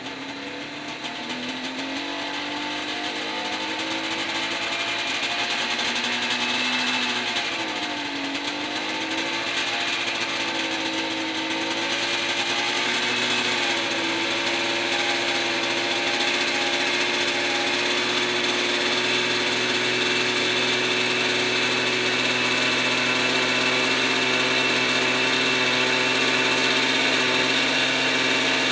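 Small engine of a backpack helicopter running during carburetor tuning: its speed climbs over the first couple of seconds, sags and recovers about eight seconds in, then holds steady at a high speed.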